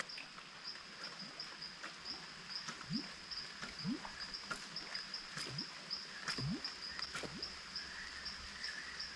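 A popper lure worked across the water surface in short jerks of the rod, giving several short bloops that rise in pitch, spaced irregularly about a second apart. An insect chirps steadily behind them, about three pulses a second.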